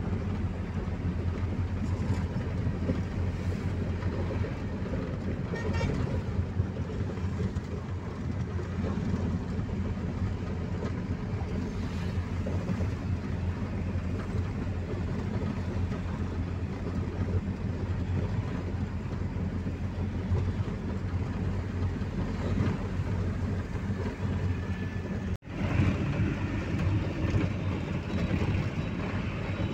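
Steady road and engine noise heard from inside a moving car's cabin in traffic, mostly a low rumble. It cuts out for an instant about 25 seconds in and comes back a little louder.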